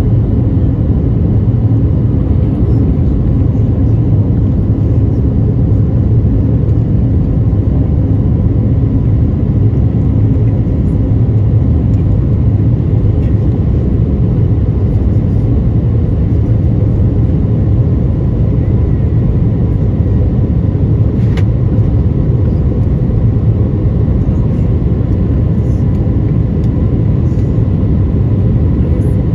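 Steady cabin noise of an Airbus A320neo climbing above the clouds: an even, low roar of the engines and airflow through the fuselage, with faint steady hums over it.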